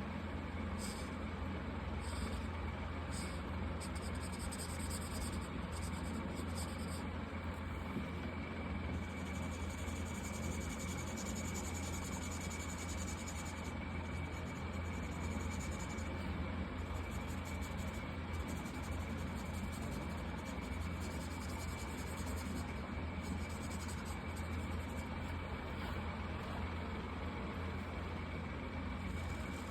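Marker nib rubbing across paper in intermittent strokes, over a steady low hum.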